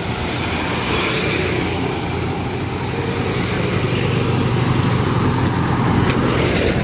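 Motorcycle engine running close by, steady, with traffic passing on the road, getting a little louder about six seconds in. A few sharp clicks near the end.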